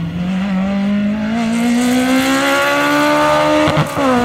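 Hill-climb race car's engine accelerating hard, its pitch rising steadily for nearly four seconds. Near the end it breaks off briefly and comes back lower as the car shifts up a gear.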